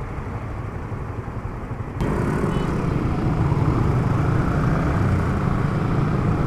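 Motorcycle running on the road: a steady, noisy low rumble that abruptly gets louder about two seconds in.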